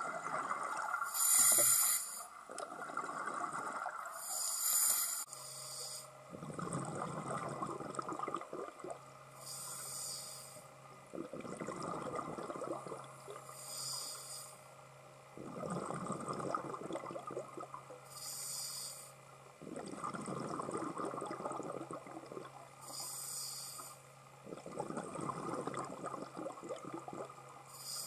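Scuba diver breathing through a regulator underwater: a short hiss on each inhale, then a longer bubbling rush as the exhaled air escapes, about every four to five seconds. A faint steady low hum joins from about five seconds in.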